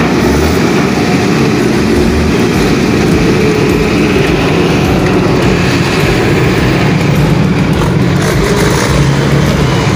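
Heavy diesel machinery engine running steadily and loudly, with a low engine sound and mechanical clatter.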